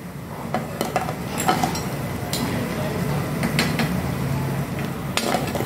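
A metal slotted spoon clinking and knocking against a metal kadhai and a plate as fried besan pakoras are lifted out of the oil and set on the plate: a string of separate light clinks.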